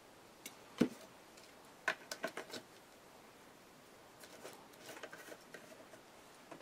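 Scattered clicks and taps of small art supplies being handled on a worktable: a sharp knock about a second in, a quick run of clicks around two seconds, and softer ticks near five seconds.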